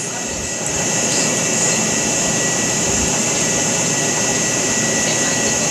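Steady rushing machine noise with a faint steady high whine, swelling slightly about a second in and then holding level.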